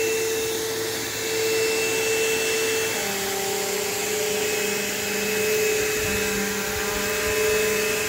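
Bissell PowerForce 3522-1 bagged upright vacuum cleaner running steadily with a constant motor hum and rush of air. About three seconds in, the motor's pitch steps down slightly.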